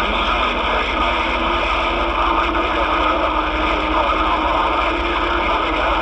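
CB radio receiver putting out loud, steady static and band noise of long-distance skip, with a faint steady tone running through the middle.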